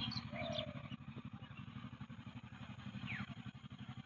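A faint engine running steadily at a distance, a low, evenly pulsing sound. A short falling chirp comes about three seconds in.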